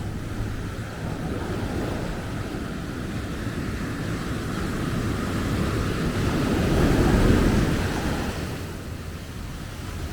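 Ocean surf on a beach: one wave building to its loudest about seven seconds in, then washing back, with wind rumbling on the microphone.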